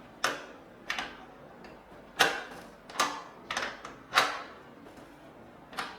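A spanner tightening nuts on a metal solar-panel mounting bracket: a string of about seven sharp metallic clicks and clinks at uneven intervals as the tool is turned and repositioned.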